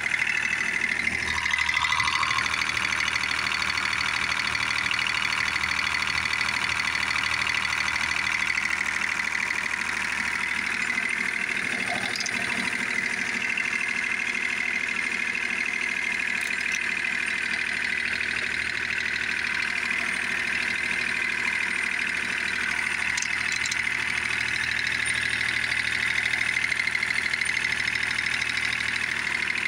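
John Deere F-935 mower's diesel engine running steadily on fresh oil and a new oil filter, with the oil pressure up and the filter not leaking.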